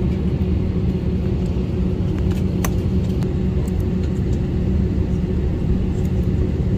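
Passenger jet heard from inside the cabin while taxiing: a steady low rumble of the engines and rolling gear, with a steady hum running through it.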